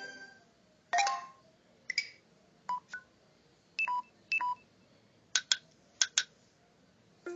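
Android screen reader interface sounds: about ten short electronic blips and ticks in irregular groups, a single one about a second in, pairs in the middle and four quick ticks near the end, as items are focused and scrolled in a list.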